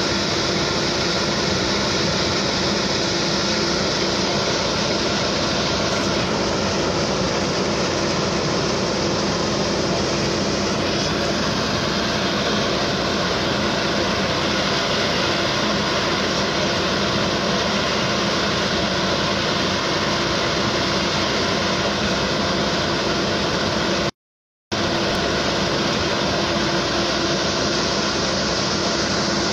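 Steady drone of idling engines with a constant hum. The sound cuts out completely for a moment about 24 seconds in.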